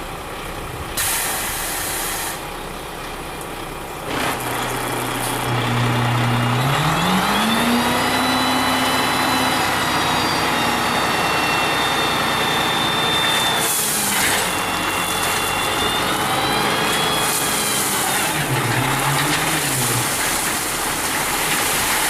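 Dump truck engine running over a steady noisy background. It revs up about six seconds in, holds, then eases off, and revs briefly again near the end.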